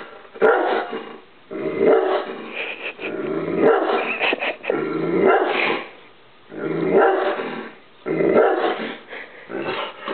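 A dog barking and growling in repeated bouts, several times over, alarm-barking up at a wall clock.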